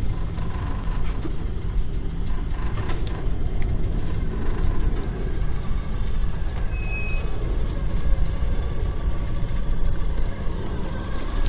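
Steady low rumbling outdoor noise with a fluctuating haze over it and no distinct events.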